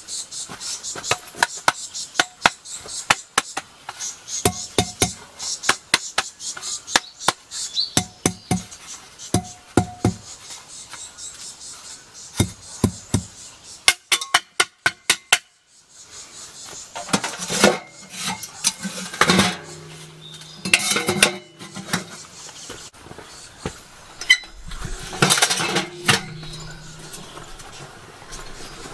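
Sheet-metal camp stove being taken apart: a quick run of sharp metallic clinks and knocks for about the first half, then slower clattering and rustling as the parts are packed into a carry bag.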